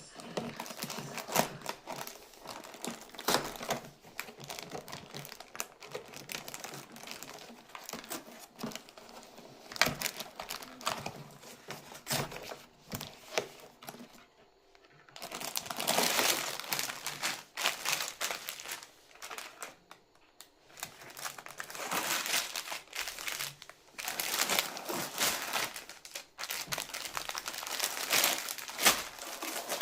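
Plastic packaging of a Lego set crinkling and rustling as it is handled and opened, with irregular sharp clicks and taps and a couple of short pauses.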